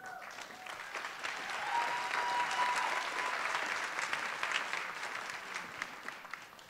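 Audience applauding, building over the first couple of seconds, then dying away near the end.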